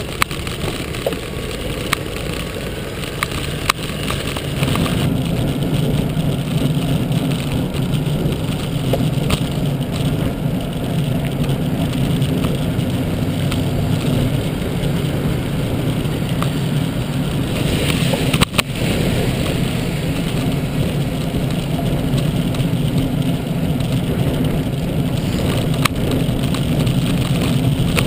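Steady wind and road rumble on a camera mounted on a moving road bike, heavier from about five seconds in, with occasional sharp knocks and one louder knock about eighteen seconds in.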